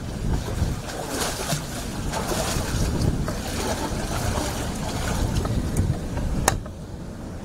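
Hurricane wind on the microphone, a low rumble under a steady hiss of rain and water. One sharp click near the end.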